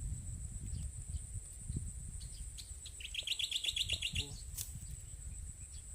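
A bird calls in a quick run of about a dozen high chirps, lasting a little over a second midway through. A steady thin high-pitched tone and a low rumble run underneath.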